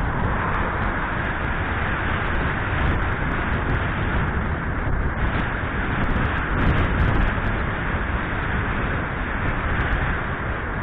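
Steady wind rush over a helmet-mounted camera's microphone while riding a bicycle along a road, mixed with tyre and road noise. The noise swells a little about six to seven seconds in.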